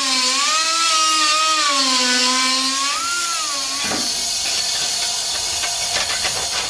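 Pneumatic die grinder grinding down a weld seam on sheet steel, its whine wavering in pitch as the load on the wheel changes. About four seconds in the whine gives way to a rougher noise with quick ticks.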